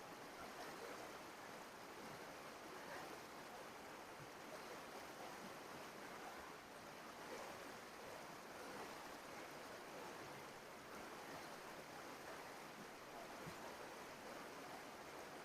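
Brook running: a faint, steady rush of flowing water.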